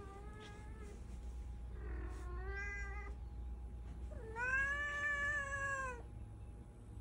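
A domestic cat meowing three times, each meow drawn out, the third the longest and loudest.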